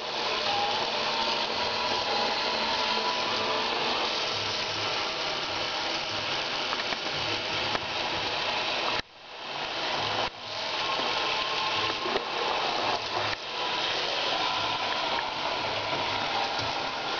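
Tap water running steadily into a bathroom sink and splashing onto a cat lying in the basin. The sound drops out briefly about nine seconds in.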